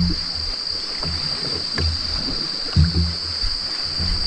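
Steady high-pitched insect drone, with water noise and a few low thuds around a small boat.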